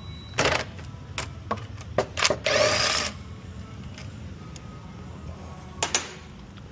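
Metal hand tools clinking and rattling: a few sharp clicks, a half-second burst of rapid clatter about two and a half seconds in, and two more clicks near the end.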